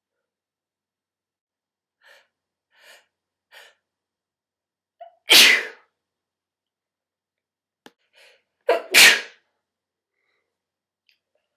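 A woman sneezing twice. Three short catching in-breaths lead into a loud sneeze about five seconds in, and a second loud sneeze, with a quick double onset, comes about three and a half seconds later.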